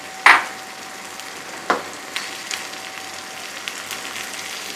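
Omelette eggs sizzling in a frying pan, with a spoon and spatula clacking against the pan. The loudest clack comes just after the start, a second follows about a second and a half later, then a few lighter taps.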